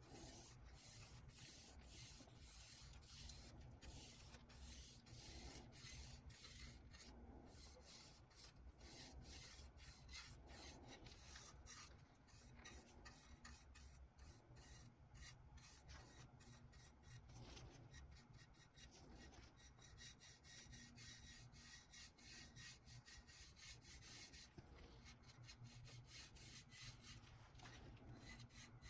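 Hand sanding: quiet, quick back-and-forth strokes of abrasive, about two to three a second, coming faster for a while past the middle.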